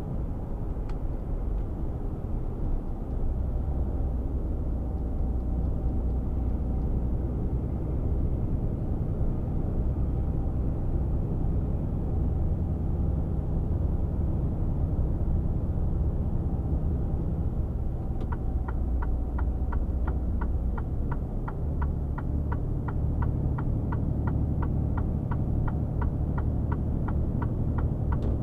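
Mercedes-Benz Actros 1848 truck heard from inside the cab at highway speed: a steady diesel engine drone with road noise. From a little past halfway, the turn-signal indicator ticks quickly and evenly, about three ticks a second, until near the end.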